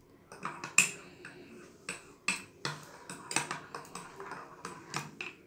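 Metal spoon stirring frothy coffee in a ceramic mug, clinking irregularly against the mug's sides.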